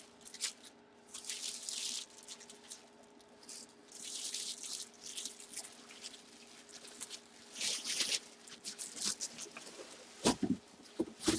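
Packaging rustling and crinkling as it is handled, coming in several short swells, with a few light knocks near the end and a faint steady hum underneath.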